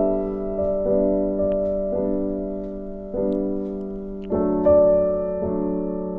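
Background music: soft keyboard chords struck about once a second, each fading slowly before the next.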